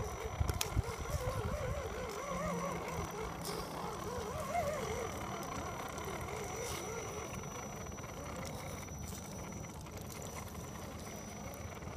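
Electric motor and gears of an Axial SCX10 RC scale crawler whining as it churns through mud, the pitch wavering with the load on the tyres; a few sharp clicks in the first second.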